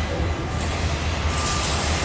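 Steady machinery noise of a car assembly line: a low rumble under an even hiss, with faint steady tones.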